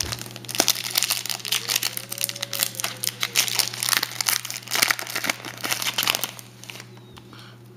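Foil trading-card pack wrapper crinkling and being torn open by hand, the crackling stopping about six seconds in.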